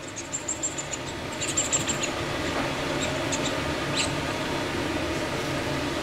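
High, thin squeaks from a small pink squeaky toy as a hand waves it at a puppy: a quick run of about six in the first second, a bunch more a little later, a few scattered ones and a last sliding squeak about four seconds in. A steady low hum lies under them.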